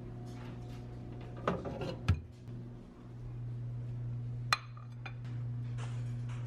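A few clinks and clatters of tableware over a steady low hum, the sharpest about two seconds in and again past four seconds.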